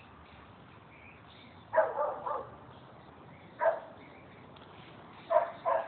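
Dog barking in short bursts: a quick run of barks about two seconds in, a single bark in the middle, and two more near the end.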